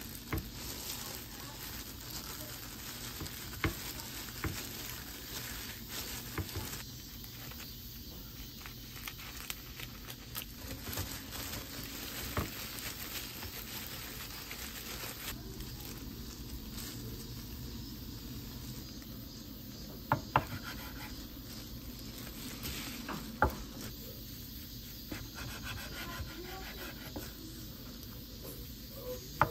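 Disposable plastic gloves rustling and dried laver crackling as gimbap is rolled by hand on a bamboo mat, with scattered small taps and clicks. Near the end, a knife slices the roll on a wooden cutting board.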